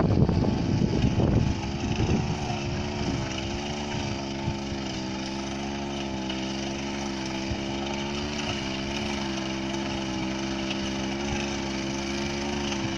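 Small 30cc engine of a rice-paddy power weeder running. It is louder and rougher for the first couple of seconds, then settles to a steady running note.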